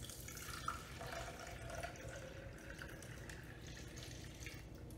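Water poured from a paper cup into the clear plastic tube of a tornado toy, splashing and trickling as the tube fills, easing off near the end.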